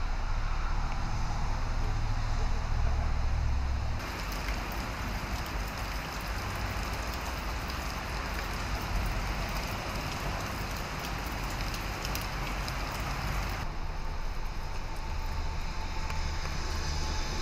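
Steady rain falling on wet pavement, with a low rumble underneath; the sound changes abruptly about four seconds in and again near the end.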